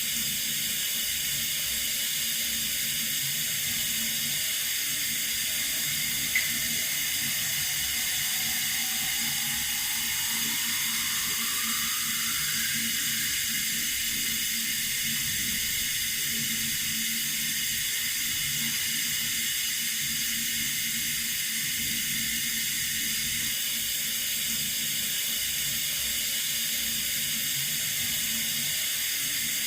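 Running water from a tap, a steady even hiss. There is a small tick about six seconds in, and a faint rising tone about a third of the way through.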